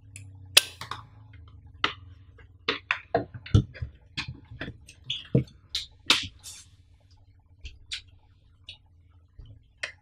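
Hard plastic clicks, taps and a few duller knocks from a power bank and its snap-on top cap being fitted, handled and set down on a table. A faint steady hum runs underneath.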